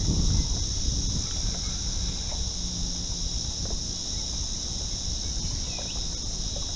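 Steady high-pitched drone of cicadas, over a low rumble of wind on the microphone.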